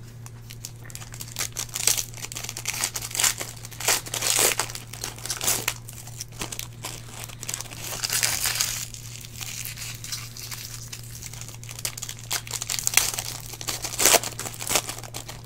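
Foil trading-card pack wrappers crinkling and tearing in irregular bursts as Panini Select packs are ripped open and the cards handled, over a steady low hum.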